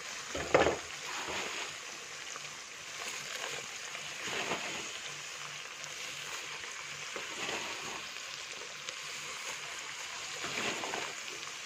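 Hot palm oil sizzling in a pot as handfuls of frozen, watery chopped potato leaves are dropped in: a steady hiss with a loud splatter about half a second in and a few smaller flare-ups as more leaves land.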